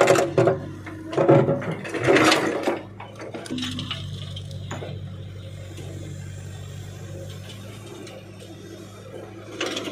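Tata John Deere backhoe loader's bucket digging into rock and soil, scraping and clattering in three loud crunches over the first few seconds. Then the loader's diesel engine running steadily, with another loud clatter near the end.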